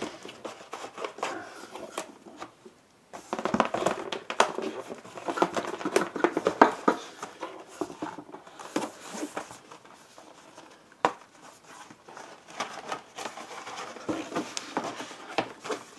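Cardboard box and packaging being handled: irregular rustling, scraping and light knocks as the packing insert is lifted out of the box, with one sharper click partway through.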